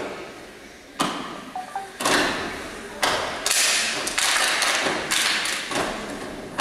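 A step team stomping and clapping in unison on a wooden stage, one sharp strike about every second, breaking into a fast flurry of strikes about halfway through, with hall echo after each.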